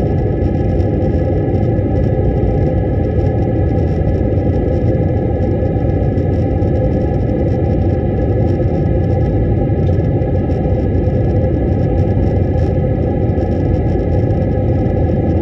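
Jet airliner cabin noise during the descent to land, heard from a window seat over the wing: a steady rumble of the engines and rushing air, low and even, with faint steady hums above it.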